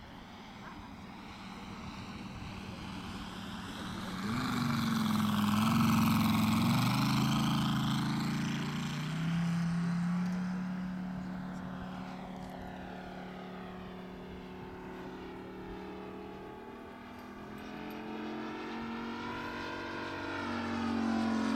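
Moki 180 radial engine of a quarter-scale RC Yak-11 in flight. It swells to its loudest about six seconds in as the model passes, drops in pitch as it goes by, fades, then grows louder again near the end.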